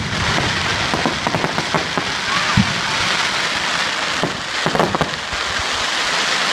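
Firework display crackling: a dense, hissing crackle of many small pops from crackling shells. A single thump about two and a half seconds in and another burst near five seconds.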